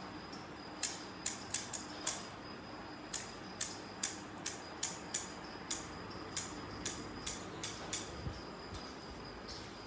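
Scissors snipping at a rug's edge: about twenty short, sharp snips, irregular at two or three a second. A steady high insect trill runs underneath.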